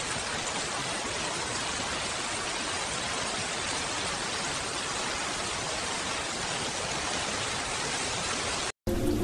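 Steady rainfall: an even, dense hiss with no separate drops or rumble standing out. It breaks off abruptly near the end.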